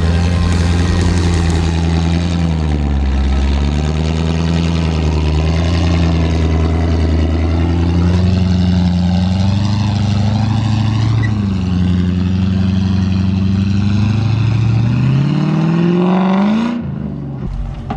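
A 4WD's engine revving up and down under load, its pitch falling and rising repeatedly, then climbing steeply near the end before cutting off abruptly.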